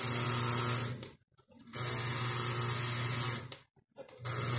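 A powered Lionel O-27 model steam locomotive and its track giving a steady electric buzz. The buzz cuts out twice for about half a second, as the power is switched off and back on.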